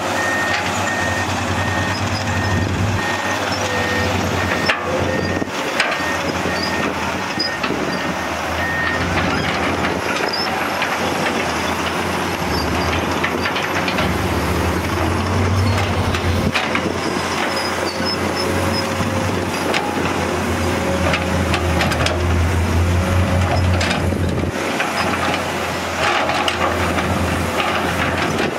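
Komatsu PC210 hydraulic excavators' diesel engines running under load while digging sand, the low engine note swelling and easing as the near machine works its bucket. A steady high whine runs through the first several seconds, and a few sharp knocks sound from the bucket working the ground.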